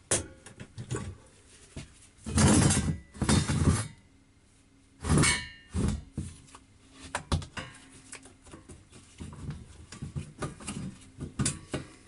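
Metal parts and tools being handled on a workbench: two loud scraping rattles a couple of seconds in, another about five seconds in, and many clinks and knocks in between.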